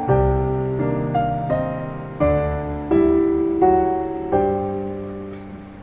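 Gentle piano music: a slow melody of single notes, each struck and left to ring over sustained low notes, dying away near the end.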